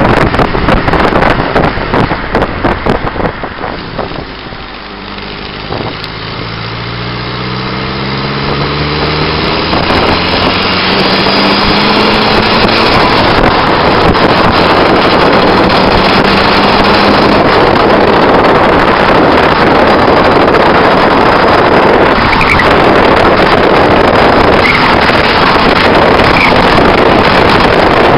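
Wind buffeting a camera mounted on the outside of a moving car, with road and tyre roar. About five seconds in the wind eases and the turbocharged SR20 four-cylinder engine of a 1990 Nissan Bluebird is heard rising steadily in pitch as the car accelerates, until the wind and road roar build back up and cover it.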